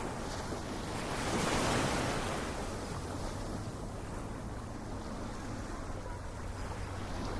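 Ocean surf: a wave surges and washes in about a second in, then settles into a steady, softer hiss of water.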